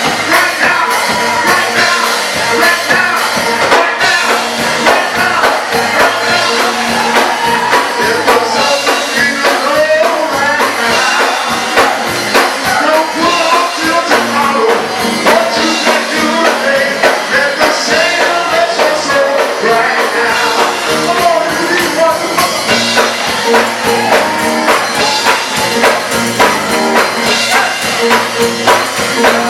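Gospel choir singing over a live church band, with a tambourine shaken in a steady beat.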